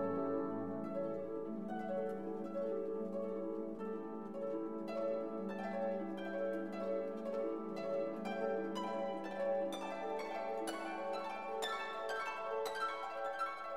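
Instrumental background music: sustained chords with plucked notes, the plucks coming more often in the second half.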